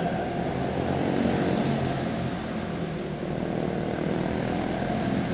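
Quarter midget race cars with Briggs & Stratton Animal single-cylinder four-stroke engines running at race speed, two cars close together, a steady engine drone in an indoor arena.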